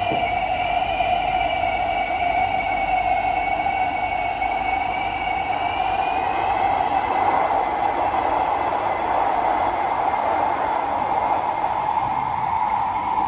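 SMRT C151B metro train running in a tunnel, with a loud, steady high screeching over the running noise, typical of wheels squealing against the rails. The screech holds one main pitch with fainter wavering higher tones, and the running noise swells a little about halfway through.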